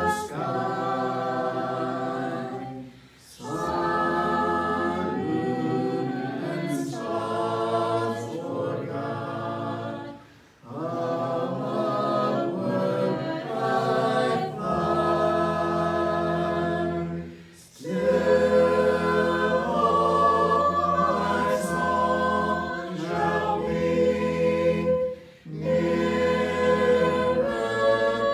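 A small congregation singing a hymn a cappella, with no instruments. The phrases break for brief breaths about every seven seconds.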